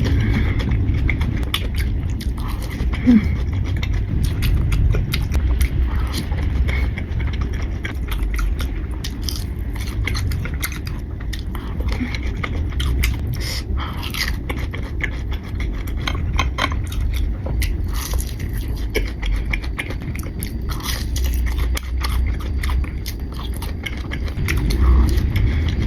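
Close-miked biting and chewing of fried nem chua (breaded fermented pork rolls), many small crunchy clicks and crackles over a low rumble of mouth sounds.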